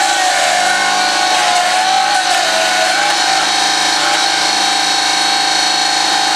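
Engine of a hydraulic-drive rock crawler running steadily while the machine climbs, with a high whine that wavers slightly in pitch.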